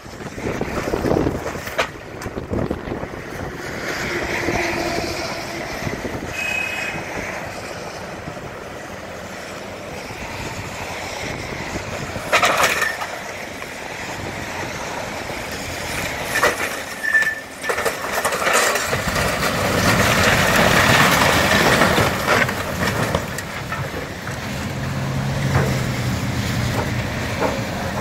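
Heavy machinery at work demolishing a building: an engine runs under continuous crunching of debris, with sharp cracks about twelve and seventeen seconds in.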